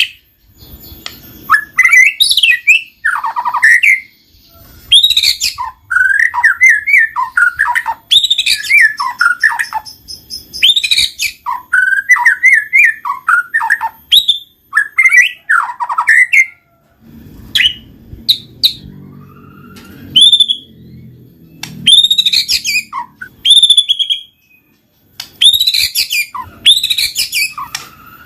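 White-rumped shama (murai batu) singing loud, varied song: bursts of rising and falling whistles and quick trills, phrase after phrase with short pauses between.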